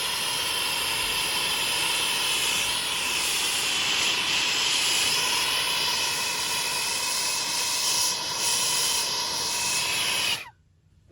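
Handheld soldering torch flame burning with a steady hiss while heating a copper pipe fitting for soldering; it stops suddenly near the end.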